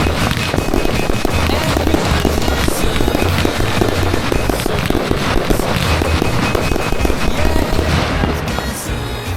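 Dense fireworks barrage, with many overlapping bursts and reports, over music from the pyromusical soundtrack. It thins out and gets quieter near the end.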